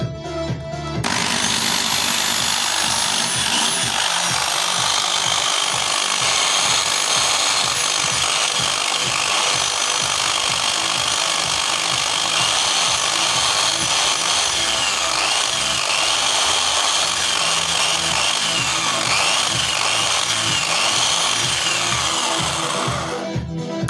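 Bosch Super Hobby 400 W electric drill starting about a second in and running at full speed. Its motor whine wavers in pitch, and it stops briefly near the end and starts again. The noise is the characteristic sound of a fault, which the repairer puts down to a worn carbon brush, possibly worn to its wire and touching the commutator.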